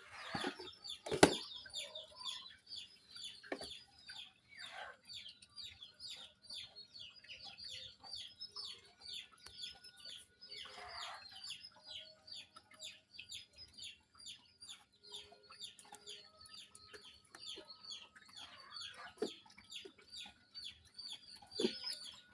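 Chickens clucking and cheeping over and over in quick short chirps, with a few sharp knocks, the loudest about a second in.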